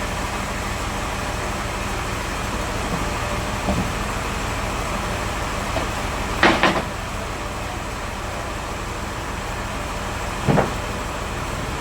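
Chainsaw running steadily, with a few sharp knocks: a double knock about six and a half seconds in and another near the end.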